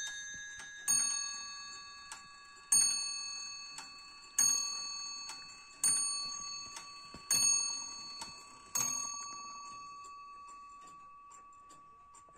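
Musical bracket clock by John Wimble of Ashford striking six on its bell, the strikes about a second and a half apart, each ringing out and fading. Its movement ticks faintly as the last ring dies away.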